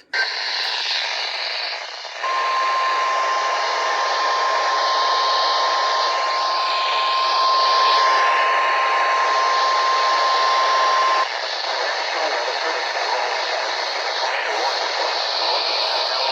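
A NOAA Weather Radio 1050 Hz warning alarm tone, the signal that a new warning is about to be read. It is a single steady pitch held for about nine seconds, over heavy radio static hiss. The tone starts about two seconds in and cuts off suddenly, and the static carries on.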